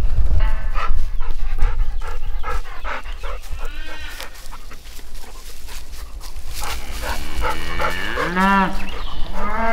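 Livestock calling loudly: several short pitched calls, then a longer call with a strong, rich tone that rises and falls about eight seconds in and carries on to the end.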